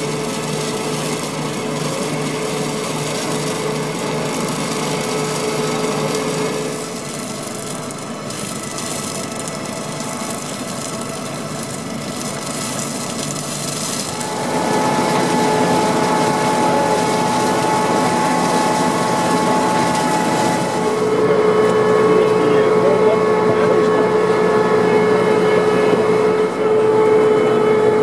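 Ploeger AR-4BX self-propelled potato harvester at work, its engine running with a steady whine over a continuous rattle of the lifting and sieving machinery. The sound shifts in pitch and loudness a few times.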